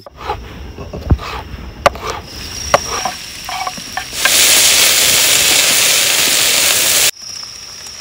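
Scattered clicks and knocks, then a loud steady hiss like sizzling that sets in about four seconds in and cuts off suddenly some three seconds later.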